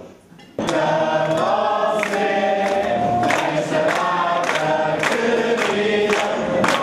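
A group of people singing together, with hands clapping in time, about two claps a second. It starts suddenly about half a second in.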